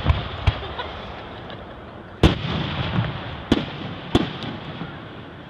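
Aerial firework shells bursting overhead: about five sharp bangs, the loudest about two seconds in, each followed by a trailing rumble.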